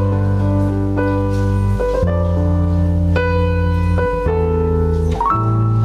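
Keyboard playing slow held chords over a deep bass line. The chord changes about once a second.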